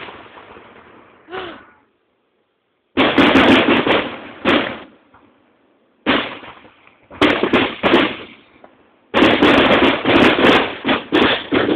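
Aerial fireworks shells bursting in clusters of rapid crackling bangs with short quiet gaps between them. The first cluster comes about three seconds in, and the longest, densest run fills the last few seconds.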